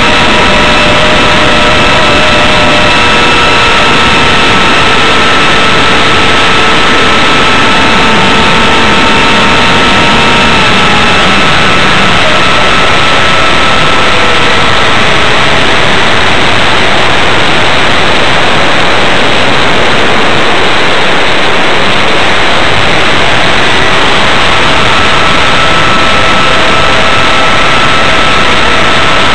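Whine of an RC plane's Turnigy B2835 3900kV brushless motor spinning a 4.75x4.75 propeller, heard from an onboard camera under heavy wind rush on the microphone. The motor pitch drops about ten seconds in, sinks further over the next few seconds as the throttle comes back, and rises again near the end.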